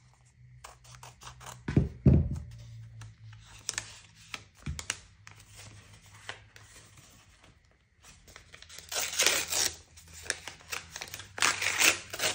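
Scissors snipping along a paper envelope with light clicks and a couple of dull knocks, then the paper envelope torn open by hand in two rough ripping bursts near the end.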